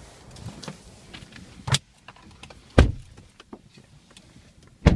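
Car door and cabin handling sounds from a 2014 Chevy Equinox as someone gets into the driver's seat: three sharp thumps, the first near two seconds in, after which the outdoor background goes quieter, as with the door shutting, with lighter clicks and knocks between.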